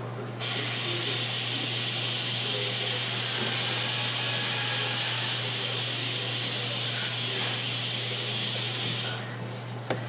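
A steady, even hiss that starts abruptly just after the start and cuts off suddenly about nine seconds in, over a constant low hum.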